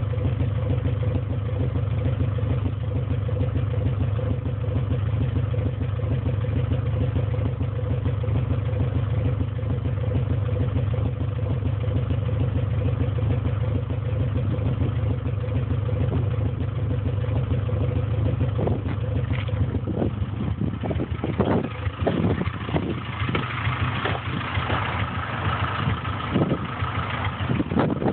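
Honda K20/K24 four-cylinder engine idling steadily through its exhaust, with an exhaust sound the owner calls weird. About two-thirds of the way through, uneven sharp pops start breaking into the steady note, joined near the end by a faint whistle.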